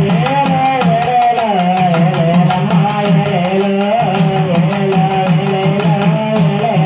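Tamil folk dance music, loud: a winding melody line over a steady drum beat.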